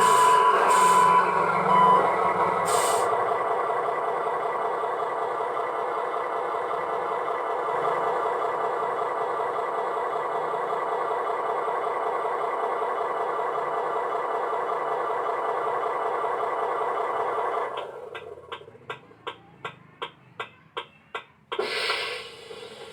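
Radio-controlled Fuso truck's simulated diesel engine running steadily, with reversing beeps during the first two seconds. The engine sound cuts out about 17 seconds in, followed by a quick run of about a dozen clicks and a short hiss near the end.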